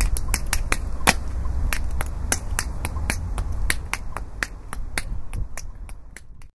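A quick, irregular series of sharp clicks or snaps, about four a second at first and then sparser, over a low rumble, growing fainter toward the end.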